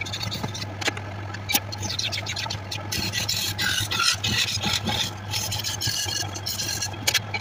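A wood lathe runs with a steady low hum while a hand-held steel turning tool cuts and scrapes a spinning wood blank, giving a continuous rasping scrape broken by irregular light clicks and ticks.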